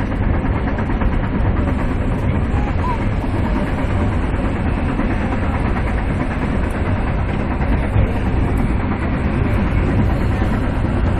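Metra commuter train running steadily along the rails: a continuous low rumble with wheel and rail noise.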